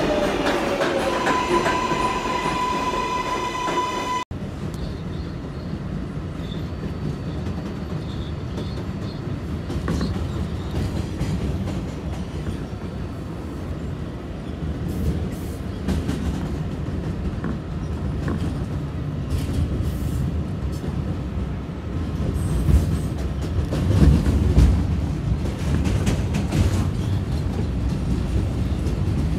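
New York City Subway 7 train of R188 cars moving along the platform, its traction motors whining in a steady high tone over the wheel rumble. About four seconds in the sound cuts to the steady low rumble and light wheel clatter of a train running on the elevated line, with louder rumbles near the end.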